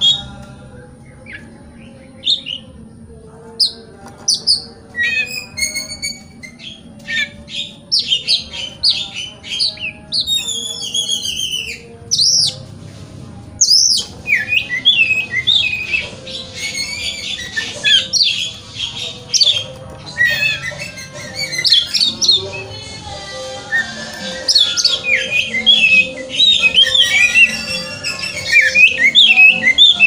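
Oriental magpie-robin (kacer) singing: a varied run of whistled notes, rising and falling glides and quick chattering phrases. It comes in separate phrases at first and turns into an almost unbroken stream of song from about halfway through.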